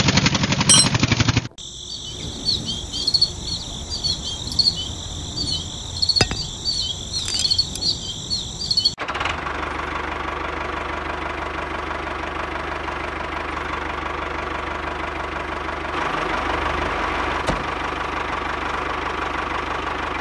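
Small DC gear motor of a homemade model tractor running with a fast, even clatter, cut off abruptly after about a second and a half. Insects then chirp high and thin, with a couple of clicks, until a steady, even whirring hum takes over for the last half.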